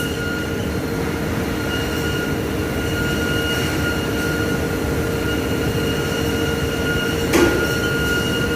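CNC machine running: a steady whine over a broad rumble, with a brief louder burst about seven seconds in.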